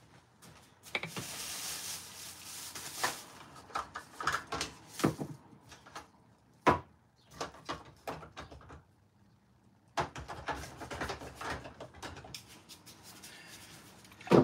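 Knocks, clicks and rattles of hard objects being handled and set down, beginning with a brief hiss about a second in. The sharpest knock comes near the middle, then after a short pause a busier stretch of clatter.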